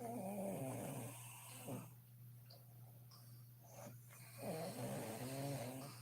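A sleeping woman snoring: two loud snores, one at the start and the next about four and a half seconds in.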